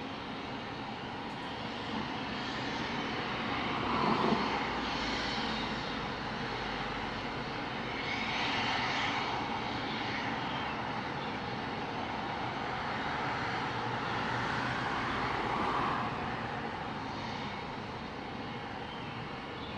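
Helicopter turbine engines and rotor running: a steady rushing noise that swells and fades a few times.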